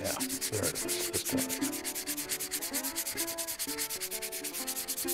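Folded 120-grit sandpaper rubbed by hand over a carved stone oloid, in quick, even back-and-forth strokes at about eight a second. It is dry-sanding out the scratches left by the 80-grit stage.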